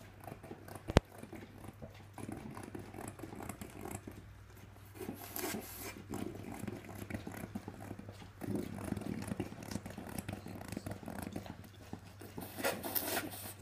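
French bulldog snuffling and licking with its muzzle inside a plastic peanut butter jar, breathing noisily into the jar in uneven spells. A single sharp click about a second in.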